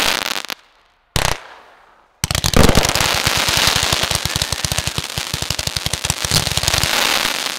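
Firework cake firing: two sharp shots with crackle in the first second and a half, then from about two seconds in a rapid-fire string of shots with crackling stars, which stops near the end.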